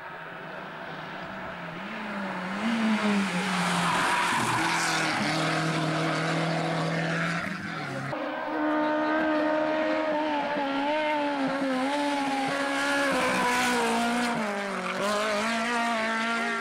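Hill-climb competition cars driven hard up a twisting road. The first engine grows louder as the car approaches. After a cut about halfway through, a second engine revs up and down through gear changes, its pitch dropping near the end.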